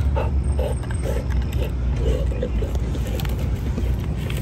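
Dog gnawing and tearing at the fibrous husk of a whole coconut, in a string of short bites a few tenths of a second apart, over a steady low rumble.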